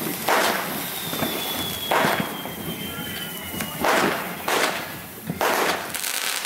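Fireworks going off around the street: about six sharp, echoing bangs a second or so apart over the steady hiss of ground fountains and sparklers. A faint high whistle glides slightly downward in the first half.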